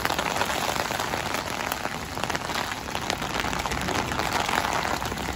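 Steady rain falling on a city street, a dense, even patter of many small drops.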